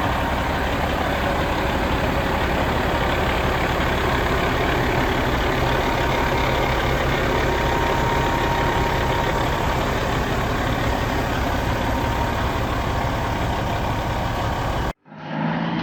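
Caterpillar C15 six-cylinder diesel of a Peterbilt 379 semi truck idling steadily. Near the end it cuts off abruptly and music begins.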